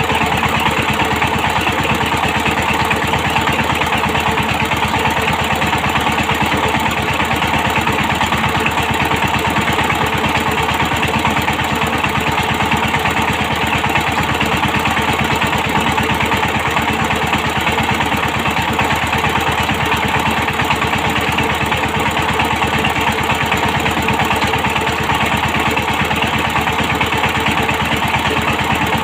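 Power tiller engine running steadily with an even, rapid firing rhythm, driving its rotavator through paddy land.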